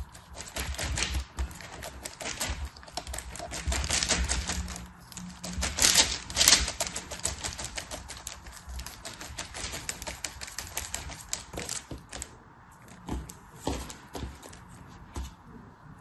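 Packaging being handled and opened by hand: rapid crinkling and clicking, loudest about six seconds in and thinning out after about twelve seconds.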